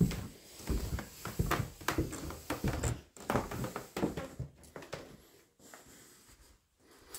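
Footsteps of a person walking across a tiled floor, about one step every two-thirds of a second, with some handling noise. They fade to quiet room tone about four and a half seconds in.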